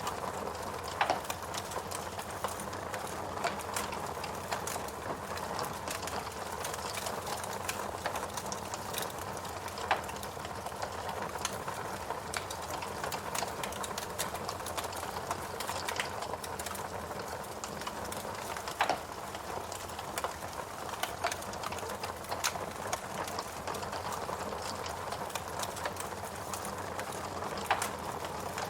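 Burning logs in a fireplace crackling: a steady soft hiss full of small rapid ticks, with a few louder sharp pops.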